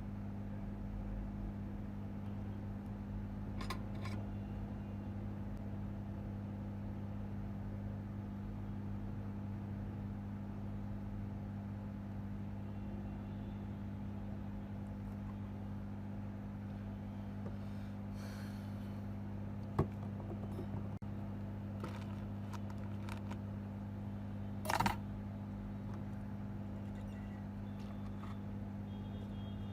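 Steady low hum of bench equipment, with a few short clicks and taps, the sharpest two-thirds of the way through.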